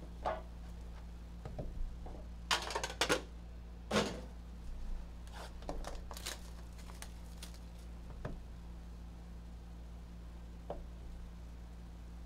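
Handling sounds of a hockey-card box being opened: scattered clicks, scrapes and rustles of a metal tin and the cardboard box inside it, busiest between about two and a half and four seconds in, over a steady low hum.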